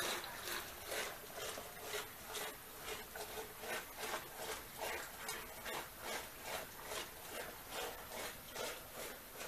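Traditional Nepali wooden churning stick (madani) spun back and forth in a pot by a pulled rope, churning curd: a steady rhythmic swishing rub, about two strokes a second.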